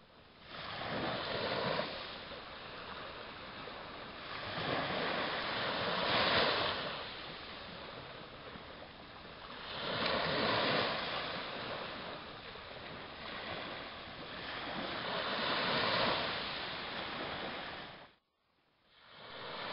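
Small sea waves breaking and washing up the shore, the surf swelling and fading every four to five seconds. The sound cuts out briefly near the end.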